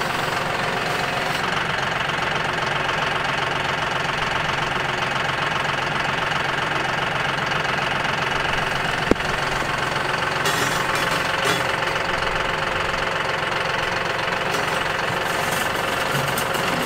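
John Deere utility tractor's diesel engine running steadily while its pallet forks lift and set down a water trough. A single sharp knock about nine seconds in.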